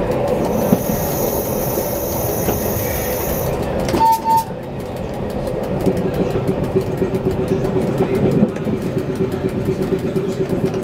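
Tram running along its track, heard from inside the driver's cab: steady rolling and running noise. A high whine sounds in the first few seconds, a short beep comes about four seconds in, and a steady hum joins from about halfway.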